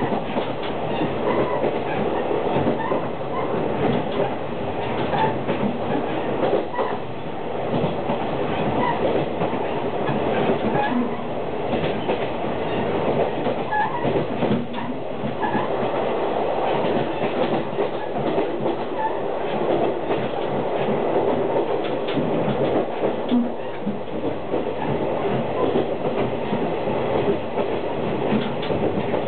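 JR KiHa 48 diesel railcar running along the line, heard from inside a middle carriage: a steady rumble of wheels on rail and engine noise, with scattered faint knocks.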